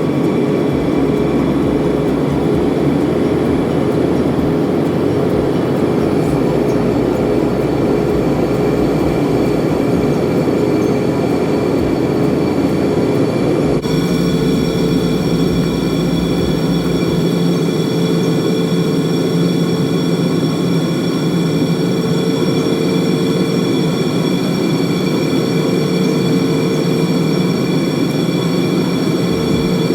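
Steady cabin noise of an Embraer ERJ145 jet, with the rush of air and the hum of its rear-mounted turbofans. About halfway through, the engine tones change pitch, a change in engine power.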